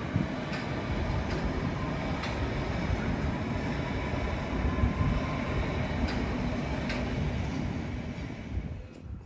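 London Underground S8 Stock Metropolitan line train running across a steel girder bridge, a steady rail noise with occasional sharp wheel clicks over rail joints. The sound falls away near the end as the last car clears.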